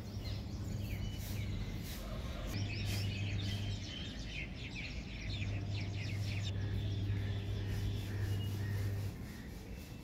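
Birds chirping in quick, repeated short calls, busiest a few seconds in, over a low steady hum that cuts in and out.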